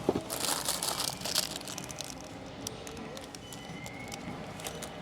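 Crinkling and rustling of plastic snack packaging being handled, loudest in a dense crackly burst during the first second and a half, then fading to quieter occasional ticks.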